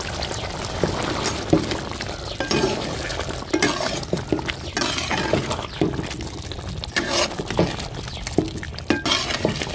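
Ladle stirring chicken in a pan of simmering gravy, with irregular scrapes and clinks against the pan over a steady bubbling.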